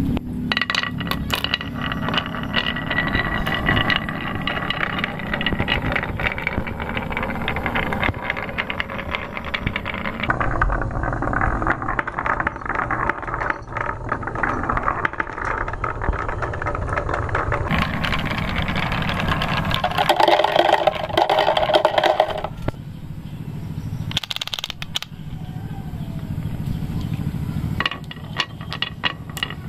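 Marbles rolling down carved wooden marble-run tracks, with a steady rumble and many quick clicks as they knock against the channel walls and each other. A short pitched hum stands out about twenty seconds in.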